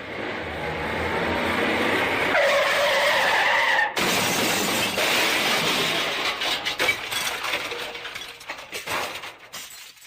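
Car crash sound effect: rising vehicle noise and a tyre skid, then a sudden crash about four seconds in. Breaking glass and falling debris follow, tinkling on and fading out.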